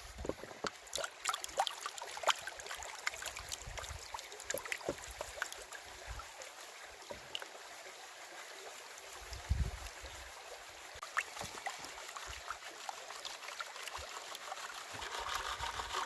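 Gold pan being worked in a creek: water sloshing and crushed ore swirling in the pan with many small gravel clicks, as the sulfides and light material are washed off, over the running creek. A dull low thump comes about halfway through.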